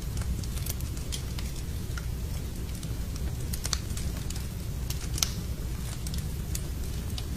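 Wood fire crackling in a fireplace: irregular sharp pops and snaps over a steady low rumble, the loudest pop about five seconds in.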